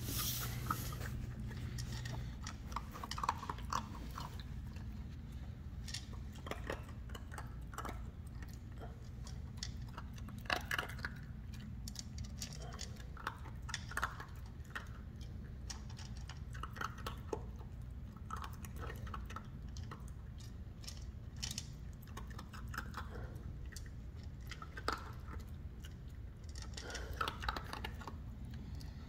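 Shiba Inu puppy crunching dry kibble from its bowl, with irregular crunches and clicks all the way through.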